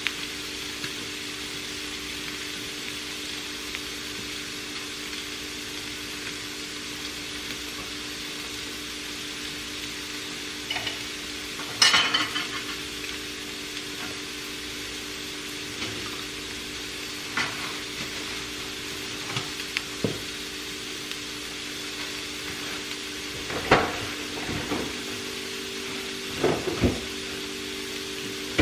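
Eggs frying in a skillet, a steady sizzle under a low hum, with scattered clinks and knocks of dishes and utensils, the loudest about twelve seconds in.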